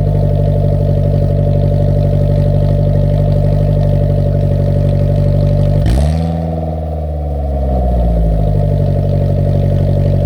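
Loud car exhaust through a one-off custom muffler with a 5ZIGEN silencer, the engine held at steady revs. About six seconds in, with a sharp click, the revs dip and then climb smoothly back to the same held pitch.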